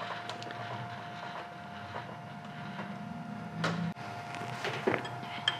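Vertical milling machine running with a steady hum and a thin whine while its table is traversed sideways. A few light knocks come near the end.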